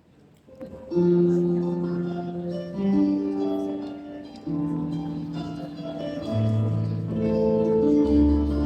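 Instrumental accompaniment starting about a second in after a near-silent pause: a slow introduction of long held chords that change every second or two.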